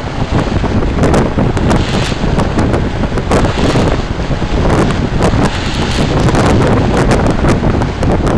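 Loud wind buffeting the microphone in irregular gusts, over water rushing and splashing along the hull of a sailboat under way.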